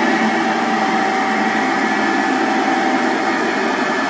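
SDLG single-drum road roller running steadily as it rolls over asphalt: an even mechanical engine noise with a few held tones.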